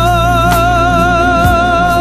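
Korean pop ballad: a singer holds one long note with vibrato over steady bass and accompaniment, with a couple of drum hits.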